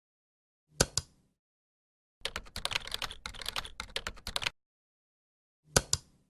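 Keyboard typing: a fast run of key clicks lasting about two seconds, with a pair of sharper clicks about a second in and another pair near the end.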